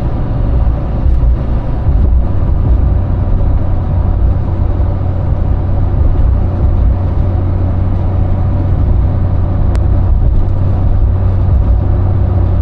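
Steady low road rumble and engine drone inside a moving vehicle's cabin.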